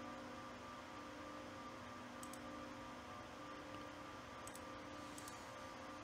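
Three computer mouse clicks, about two, four and a half and five seconds in, each a quick double click of press and release, over a faint steady hum with a few held tones.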